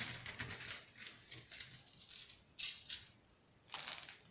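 Metal alloy bookmarks clinking and jangling against one another as they are gathered into a bundle by hand, in irregular bursts of light metallic clicks, the loudest about two and a half seconds in.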